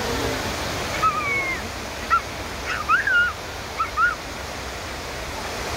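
Water cascading down the granite walls of the 9/11 Memorial reflecting pool, a steady rush. Over it, from about a second in until about four seconds in, comes a run of short, high, squeaky chirps that are louder than the water.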